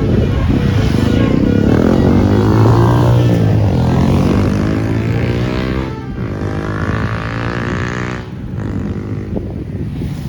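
Tour bus diesel engine running as the bus drives close past, its sound sweeping as it goes by, then easing off about six seconds in.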